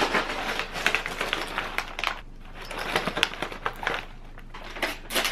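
Plastic snack bags crinkling and rustling as they are picked up and handled, a quick run of sharp crackles that pauses briefly before a last burst near the end.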